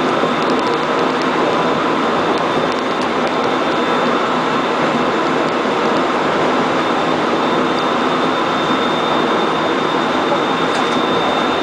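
Interior running noise of a Korail 311000-series electric multiple-unit car moving at speed: a steady rush and rumble of wheels on rail, with a thin, steady high tone over it.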